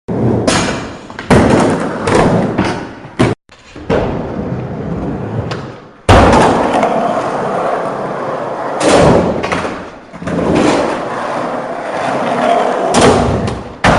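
Skateboard rolling on hard ground, with repeated thuds and slaps of the board hitting and landing. The sound changes abruptly at edit cuts.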